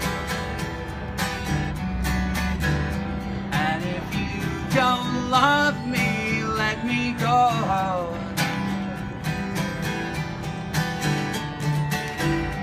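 Acoustic guitar strummed steadily, with a man's voice singing over it for a few seconds in the middle.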